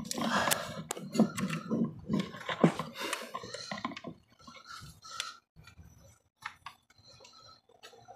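Hands working in a truck's engine bay: irregular clinks, taps and rustles as tools and metal parts are handled. The sounds are busiest for the first four seconds or so, then thin out to occasional small clicks.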